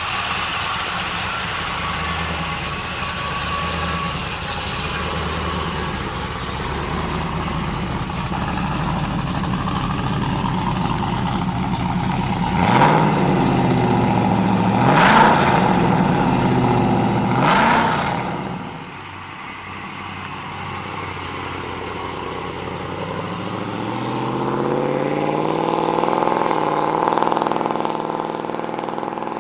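1998 Pontiac Firebird Formula's LS1 V8, running through modified cylinder heads and camshaft, idling steadily and then blipped three times in quick revs around the middle. After a short lull the car pulls away, its engine note climbing steadily.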